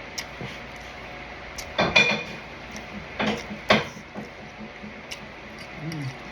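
Tableware clattering during a meal: a few sharp clinks and scrapes, loudest about two seconds in and twice more around three and a half seconds.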